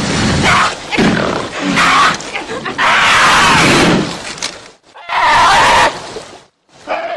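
Cougar snarling and screeching in a string of loud bursts with short breaks between them.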